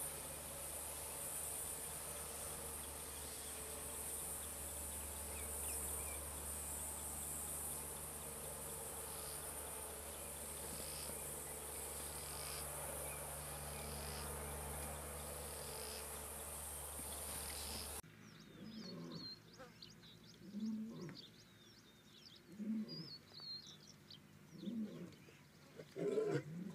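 Steady high insect chirring for about the first eighteen seconds, then it stops abruptly. After that, birds chirp while a male lion gives low moaning calls about every two seconds, growing louder toward the end.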